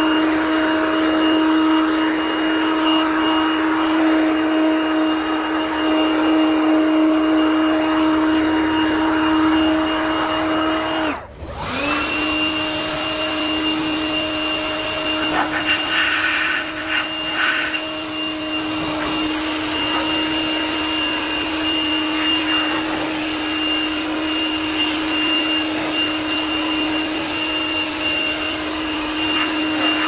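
Handheld 21 V cordless electric air blower running steadily: a high motor whine over rushing air. It cuts out briefly about eleven seconds in, then spins back up and runs steadily again.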